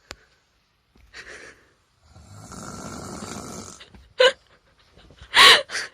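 A sleeping woman snoring with her mouth open: one long snore of about two seconds, then short, much louder sounds with a voiced edge near the end.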